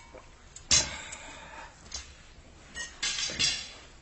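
A sharp knock about a second in, then a short cluster of knocks and clatter near the end.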